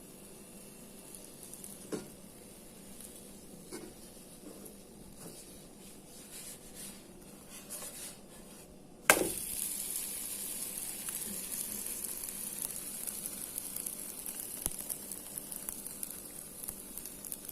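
Pancake batter frying in an oiled pan. A faint sizzle with a few light clicks, then a sharp knock a little past halfway, after which the sizzle turns much louder and steady.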